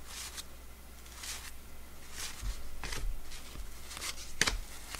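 1989 Donruss baseball cards being slid off a stack one at a time from hand to hand. They make soft papery swishes and light clicks about once a second, with a few dull bumps from handling.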